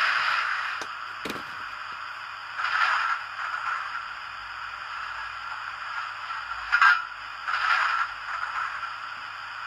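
Hornby TTS sound decoder in a model GWR King class steam locomotive playing standing-steam sounds through its small speaker. A steam hiss fades away in the first second. Then come short scraping bursts about 3 seconds in and again around 7 to 8 seconds in.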